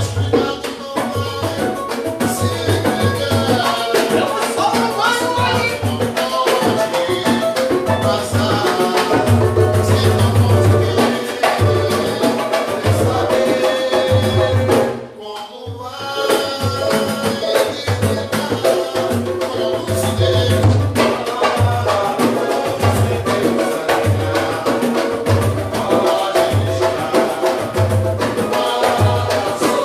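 Samba played by a band: a steady deep drum beat with shakers and other percussion under the melody. The music dips briefly about halfway through.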